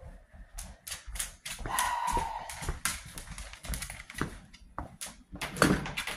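A husky's claws clicking and scrabbling on a hard floor in quick, irregular taps, mixed with knocks and rustling from handling, with a louder knock near the end.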